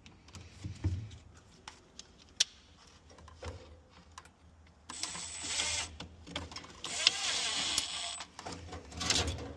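Refrigerator repair work: scattered light clicks and knocks of parts being handled, then two noisy, hissing bursts of about a second each, the second a little longer.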